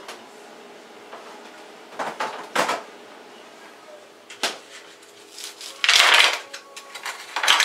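Kitchen handling noises: a few separate knocks and clatters, a longer rattling burst about six seconds in, and a quick run of clicks near the end.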